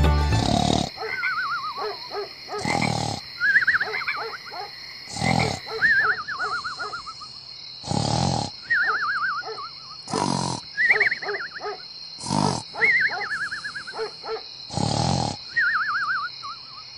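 Cartoon snoring sound effect: a rasping snore about every two and a half seconds, seven in all, each followed by a wavering whistle that falls in pitch, over a steady high hum.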